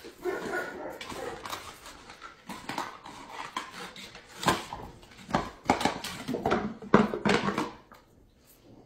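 A dog indoors: a short pitched call in the first second, then a run of irregular knocks and clicks.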